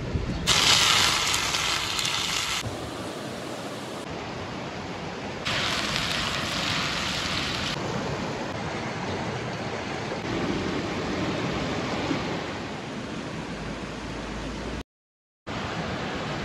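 Rushing river water: a steady rush that changes abruptly several times, brighter and hissier about half a second in and again about five and a half seconds in, with a brief break near the end.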